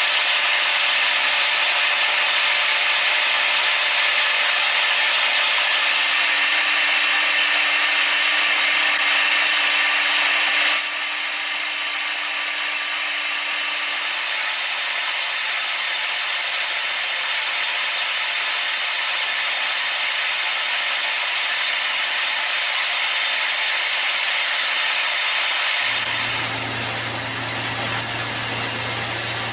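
CNC machine tools running and cutting, a steady high-pitched machining noise. It changes abruptly about eleven seconds in, and a low steady hum joins near the end.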